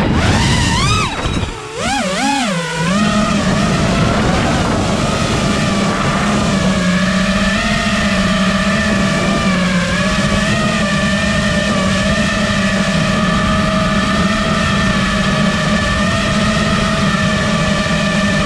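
FPV racing quadcopter's brushless motors and propellers whining, as heard on the drone itself. The pitch swings rapidly up and down over the first three seconds, with a brief drop in level as the throttle is cut and punched again. It then settles into a steady whine.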